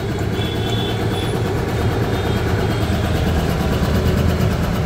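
A 3 HP twin-piston, belt-driven air compressor runs on its 2 HP Godrej single-phase electric motor, a steady rhythmic mechanical pumping. The tank pressure is nearing the 100 psi point where the automatic pressure switch cuts it off.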